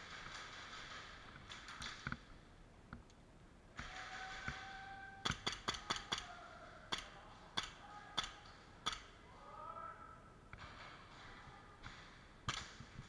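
Airsoft pistol shots: a quick string of about five sharp cracks, then single shots about once every second, and one more near the end.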